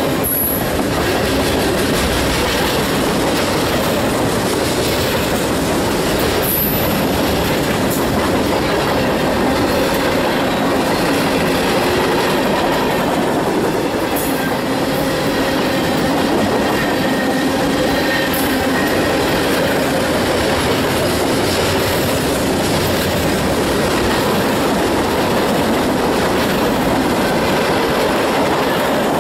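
Freight cars rolling past close by, a loud steady rumble of wheels on the rails with a few scattered clanks. A faint wheel squeal comes in now and then, mostly in the middle.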